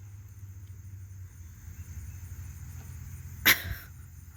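Crickets chirring steadily, with one short, sharp yip from a borzoi puppy about three and a half seconds in.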